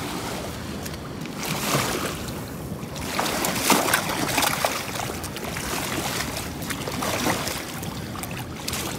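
Water rushing and lapping at the edge of a concrete ramp, with wind on the microphone. Louder splashing and scuffing swells about one and a half seconds in and again from about three to five seconds in, as a fish is lifted from the shallows.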